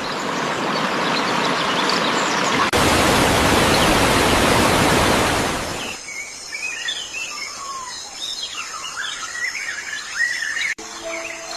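Rushing water, louder after a cut about three seconds in, for about six seconds; then birds chirping and trilling over a quiet jungle background. A few steady musical tones start near the end.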